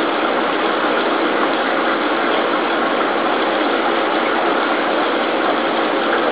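Steady, even machine-like noise with a faint steady hum in it, unchanging throughout.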